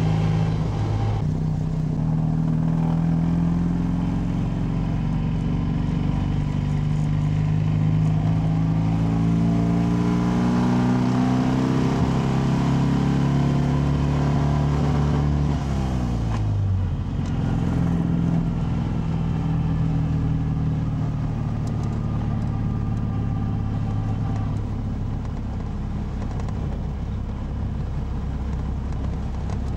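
Panhard DB HBR5's air-cooled flat-twin engine driving along, its pitch climbing slowly as it pulls. About sixteen seconds in it falls sharply, then runs steadily.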